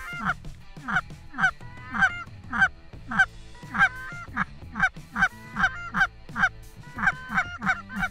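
Rapid goose honking, about two to three honks a second with a couple of brief pauses; each honk is a short two-note call that breaks from a high note to a low one.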